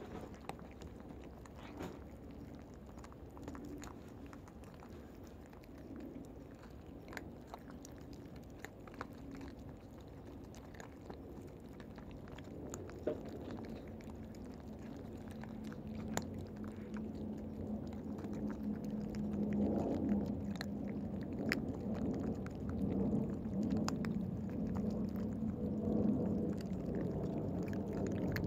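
Cats eating close to the microphone: many quick crunching and chewing clicks. From about halfway through, a low steady hum from the cats rises under the chewing and becomes the loudest sound.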